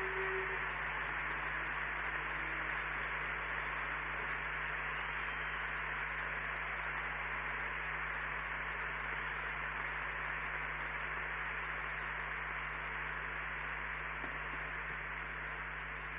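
Large crowd applauding in a big arena: dense, steady clapping that slowly dies down near the end.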